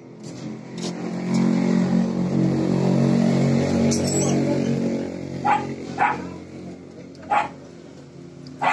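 A low, steady rumbling sound swells and fades over the first five seconds, and then a dog barks sharply four times while sparring with a monkey.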